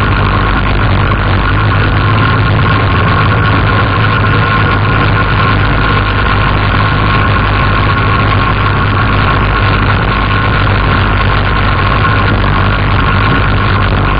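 Quad bike (ATV) engine running steadily while riding, a constant low drone with a steady whine above it and no revving.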